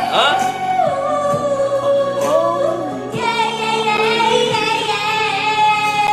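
A pop song with a woman singing over backing music; about halfway through she holds one long note.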